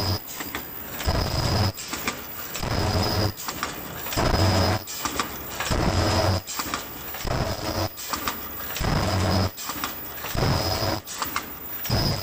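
Automatic mask inner-earloop welding machine running in a steady repeating cycle, about once every one and a half seconds. Each cycle brings a short high tone and a low hum over mechanical clatter.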